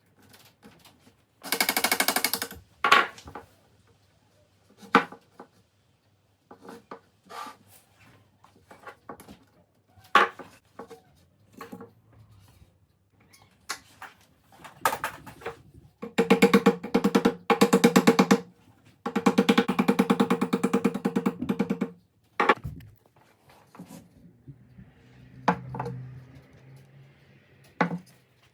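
Hardware being fitted to a wooden snare drum shell: several bursts of rapid rattling that set the shell ringing, with scattered clicks and knocks of parts and tools in between.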